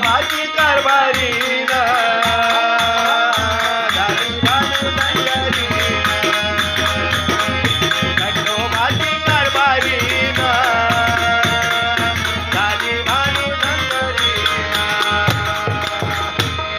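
Instrumental passage of a Marathi devotional folk song: a melody line slides between notes over a steady rhythm of hand drums and a rattle.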